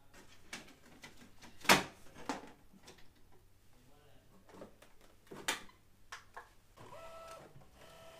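Paper being loaded into the rear sheet feed of an Epson photo printer: a series of clicks and knocks, the loudest about two seconds in. Near the end the printer's mechanism starts, with a repeating pitched whirring as it begins the test print.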